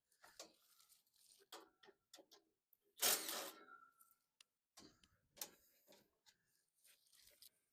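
Scattered small clicks and ticks of screws being worked out of a gas furnace's sheet-metal panels, with one louder metallic clatter about three seconds in that rings briefly.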